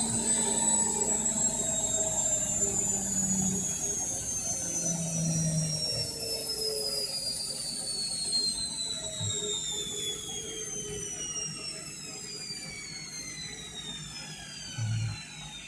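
Indesit washing machine spinning down at the end of its final spin: the motor's high whine falls steadily in pitch as the drum slows, over a low rumble. A short low thud comes near the end.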